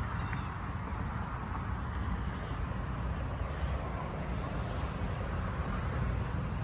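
Steady outdoor background noise: a low rumble of distant traffic with wind buffeting the microphone.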